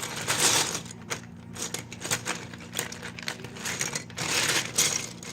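Small plastic Lego pieces clicking, scraping and rattling as they are handled, a quick irregular run of light clicks.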